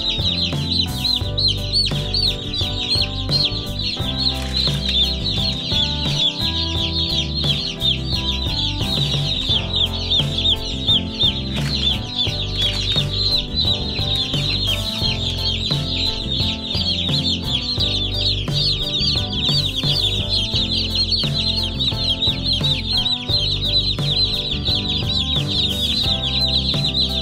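A brooder full of Cornish Cross broiler chicks peeping continuously, many high chirps overlapping, with background music playing underneath.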